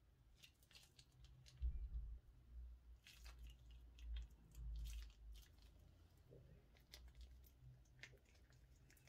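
Slime being handled: faint squishing with scattered crackling clicks and a few soft thuds, loudest in the first half.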